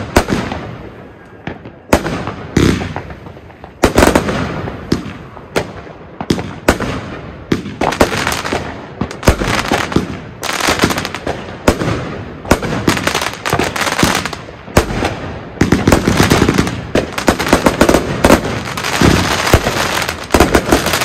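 Argento Walküre firework cake (131 shots, 30, 25 and 20 mm calibres) firing: a string of launch thumps and bursting bangs. The shots are spaced out at first and thicken into a dense, near-continuous volley from about eight seconds in.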